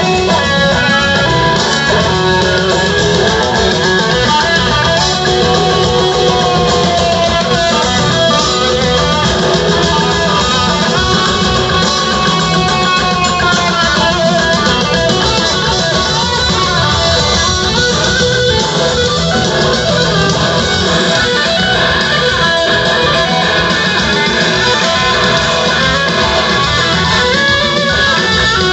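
A live rock band playing an instrumental jam, with an electric guitar lead whose notes glide up and down in pitch over bass and drums, loud and heard from within the crowd.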